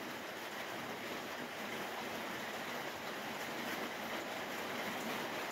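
Steady, even rushing hiss of background noise, with no distinct knocks or clicks.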